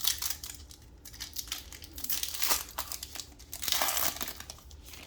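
Foil trading-card pack wrapper crinkling and being torn open, in rustling bursts, loudest about two and a half seconds in and again near four seconds.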